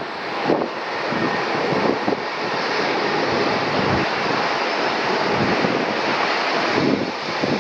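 Airbus A320-232 jet engines (IAE V2500 turbofans) running, a steady loud rush of jet noise that swells over the first second and then holds level.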